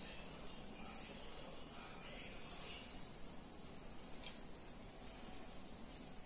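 Steady high-pitched pulsing trill, with a few faint soft ticks.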